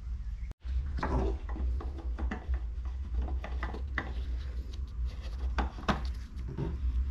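Scattered clicks and rubbing of plastic as a gloved hand handles the oil filler cap in a Corvette engine bay, starting about a second in, over a steady low hum.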